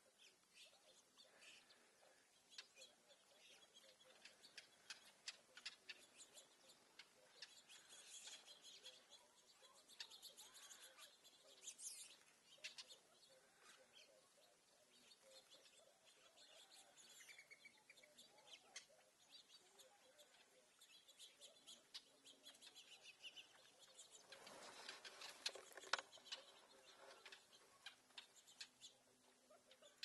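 Small birds feeding on seed scattered on gravel, chirping faintly now and then among many light clicks and ticks. About two-thirds of the way through there is a louder rustling burst lasting a couple of seconds.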